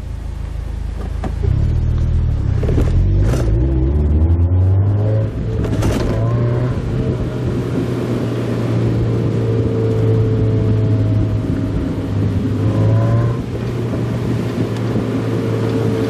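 Mazda Roadster's four-cylinder engine heard from inside the open-top car with the road and wind noise of driving. It speeds up about a second and a half in, with the revs climbing over the next few seconds, then settles into a steady drone. Two brief knocks come around three and six seconds in.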